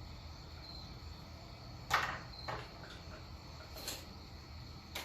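Crickets chirping steadily in the background, with a few sharp clicks and knocks from parts being handled; the loudest click comes about two seconds in.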